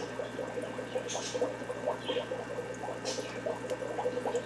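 Air-driven aquarium sponge filters bubbling: a steady, faint patter of small bubbles breaking at the water surface, over a steady low hum.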